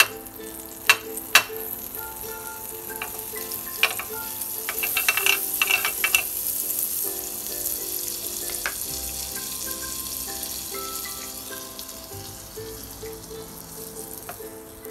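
Butter sizzling and frying as it melts in a hot stovetop sandwich maker, louder from about five seconds in. A metal spoon clicks against the pan a few times in the first four seconds.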